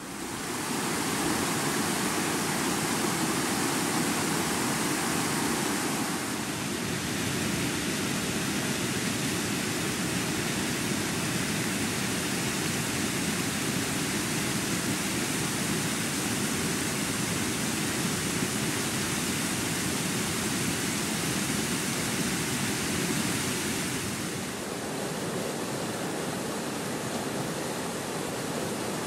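Flash-flood water rushing through a stream channel: a steady, even rush of noise. Its tone shifts a little about six seconds in and again near the end.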